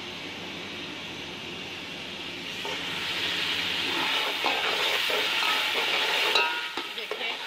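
Onion, tomato and chicken masala frying in oil in a pot, sizzling steadily while a spoon stirs it, with short scrapes and clicks of the spoon against the pot. The sizzle grows louder about three seconds in.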